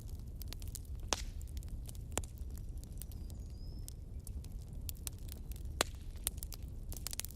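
Wood fire burning in a fireplace: irregular sharp crackles and pops from the burning logs over a steady low rumble of the flames, with a faint brief whistle about three seconds in.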